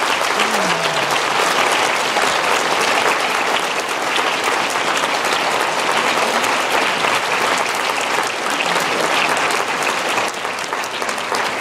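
Audience applause, many people clapping steadily after a reading; it eases slightly near the end.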